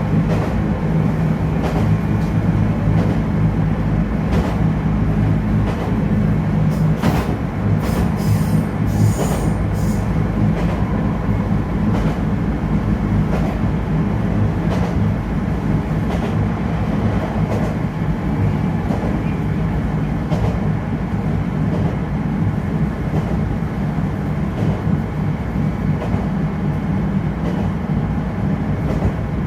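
HK100 diesel railcar running along the line, heard on board: a steady engine drone with the wheels clicking over the rails, and a cluster of sharper clicks about seven to ten seconds in.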